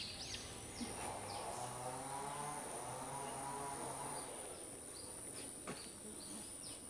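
Tropical forest insects keeping up a steady high-pitched shrill, with a few quick repeated bird chirps at the start and a faint low hum that swells and fades in the middle.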